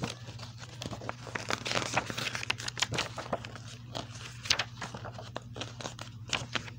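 Paper advertising inserts from a DVD case rustling and crinkling as they are handled and flipped through, with many small irregular clicks and taps.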